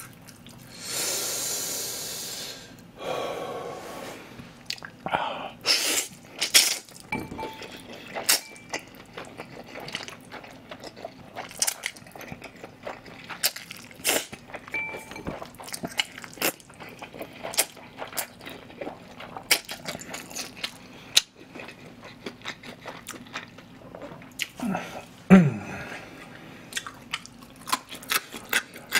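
Close-miked slurping of thick cold noodles, twice in the first few seconds, then steady wet chewing with many short mouth clicks and lip smacks. Near the end, a short falling hum from the eater.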